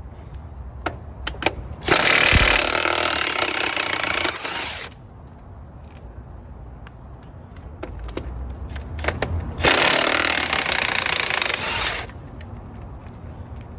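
Impact wrench hammering in two bursts of about three and two and a half seconds, loosening the wheel's lug nuts, with small metal clicks and clinks between.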